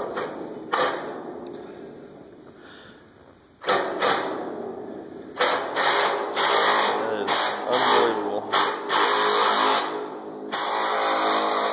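Loud machinery noise starts abruptly about four seconds in and runs on, dipping briefly near the end, after a few sharp clicks in the first second.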